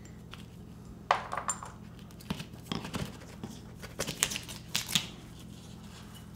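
Screwdriver working on an old ceiling electrical box and its hanger bar as the box is taken out of the drywall: scattered metallic clicks, clinks and small scrapes, a few of them in quick clusters.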